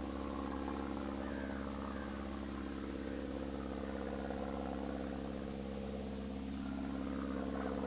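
A steady engine drone, even and unchanging in pitch, from a motor running at constant speed.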